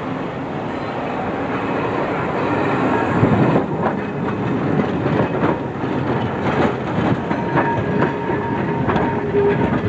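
Vintage Munich tram, a motor car with a trailer, rolling past at close range, its wheels clattering over rail joints. It grows louder about three seconds in, and a faint steady whine joins in the second half.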